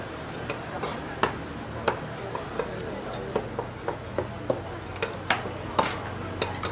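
Kitchen utensils clacking and knocking irregularly, about two sharp strikes a second, over a steady low hum.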